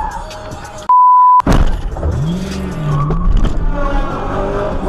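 Car crash noise heard from inside the car, with rumbling and scraping noise. About a second in, a short one-tone censor beep cuts in. The loud crash noise then resumes suddenly, carrying a tone that rises and falls.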